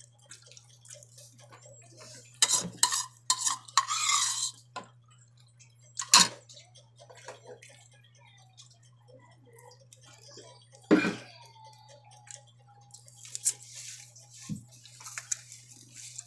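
Dishes and cutlery clinking and knocking, scattered one-off strikes a second or more apart, with a steady low hum underneath and a stretch of hiss near the end.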